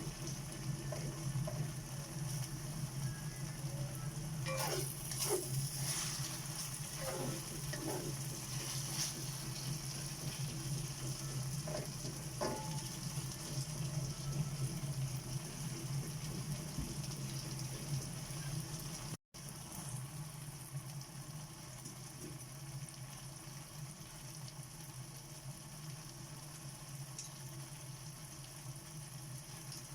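Garlic, onion, tomato and red bell pepper sautéing in oil in a pan on low flame, a steady sizzle. A few short scrapes of the ladle stirring come between about 4 and 13 seconds in.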